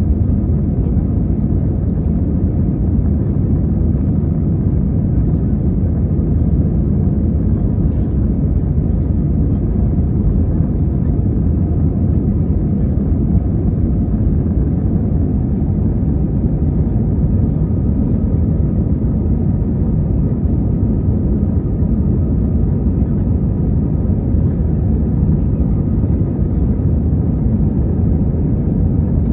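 Commercial airliner's engines and airflow as a steady, unchanging low rumble, heard from inside the cabin.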